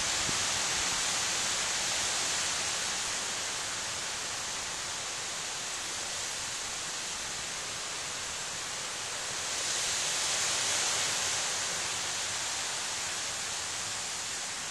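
Steady rushing outdoor background noise, swelling for a couple of seconds about ten seconds in.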